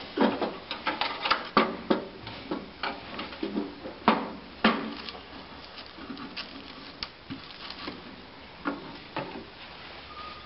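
Irregular knocks, taps and clicks as a consumer unit enclosure is handled and turned over on a wooden floor and its clear plastic front cover is lifted. The sounds come thick and fast in the first few seconds, then thin out to scattered clicks.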